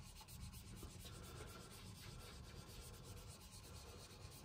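Faint rubbing and dabbing of a foam sponge dauber on cardstock as ink is blended onto the card.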